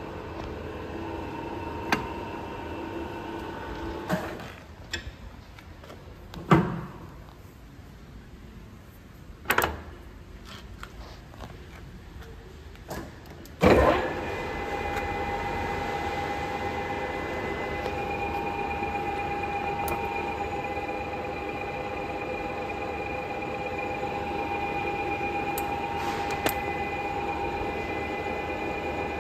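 Bells Blue Line AL-6A-85 six-shaku engine lathe running with a steady geared whine that stops about four seconds in. A few sharp clunks follow while it is quiet. About fourteen seconds in a loud clunk comes as the spindle starts again, and the headstock runs on with a louder, steady whine.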